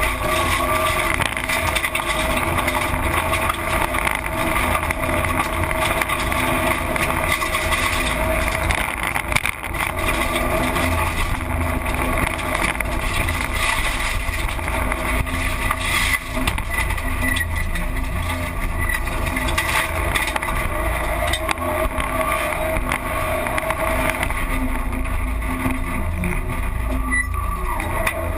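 Engine and road noise inside a Subaru Impreza rally car's cabin, driven hard on a special stage. The engine sound is loud and steady, with short drops in level about a third of the way in and again about halfway, as on gear changes or lifts.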